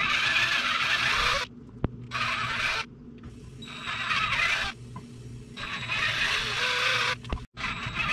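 Electric drill boring into a pine lure blank, stepping up a bit size to widen the holes. The bit cuts into the wood in repeated bursts about a second long, over the steady run of the motor.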